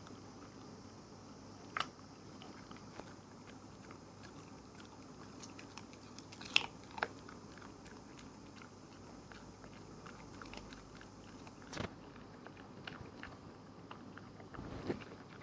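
A small animal gnawing and nibbling at food: faint scattered crunching clicks over a low hiss, with a few louder sharp crunches spread through.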